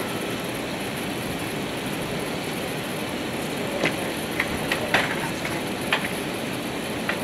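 Steady cabin noise of an Airbus A380 taxiing after landing, heard from a window seat. From about four seconds in, a handful of short sharp clicks and knocks sound inside the cabin.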